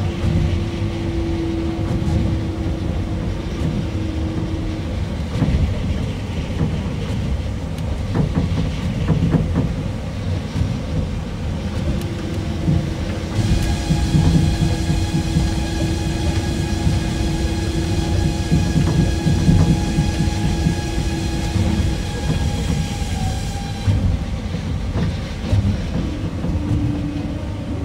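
Osaka Monorail 2000 series train running on its rubber-tyred straddle beam, a steady rumble with a low hum. A set of high steady tones joins it for about ten seconds in the middle.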